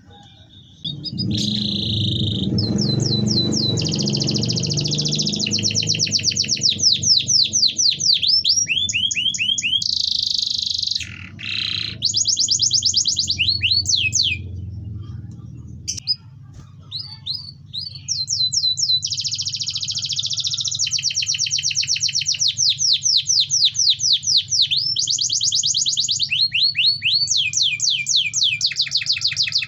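Domestic canary singing long rolling trills of rapid, evenly repeated high notes, the 'wit wit werrr' rolling song, broken by brief pauses. This is the kind of song played to spur other canaries into singing.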